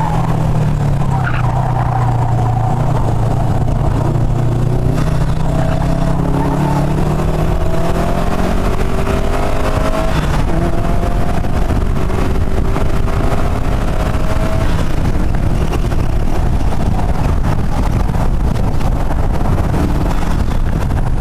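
Subaru WRX STi's turbocharged flat-four engine running hard on track, its pitch climbing several times as it accelerates through the gears, over heavy wind and road noise.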